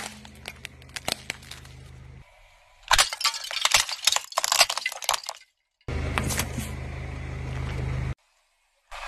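Car tyre rolling over and crushing small plastic toys and sweets: bursts of sharp cracking and snapping, loudest from about three to five seconds in, in separate short clips with a low steady car hum underneath and a silent gap between them.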